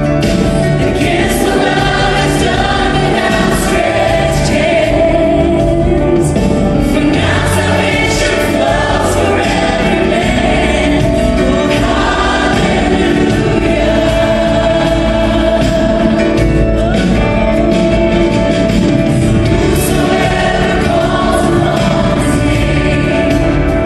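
Large choir and a front line of lead singers singing a gospel worship song with a live band accompanying them.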